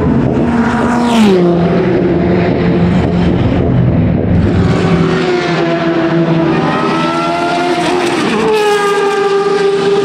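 A sports-prototype racing car passes at speed about a second in, its engine note falling sharply as it goes by and then holding steady as it pulls away. Then a second racing car, a historic Formula 1 car with a Cosworth DFV V8, accelerates with a rising engine note, changes up near the end and pulls on.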